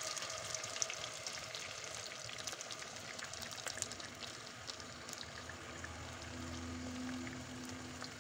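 Melted butter and oil sizzling and crackling in a frying pan as cream is poured in, easing a little toward the end. A faint low hum joins in about six seconds in.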